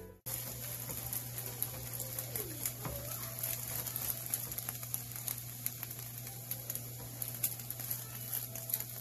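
Eggs frying in oil in a frying pan, sizzling with a steady fine crackle, over a steady low hum.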